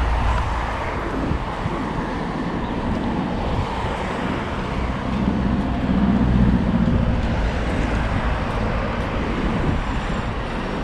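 Steady low rumble of a vehicle engine over outdoor background noise, growing louder about five seconds in and easing off after about seven.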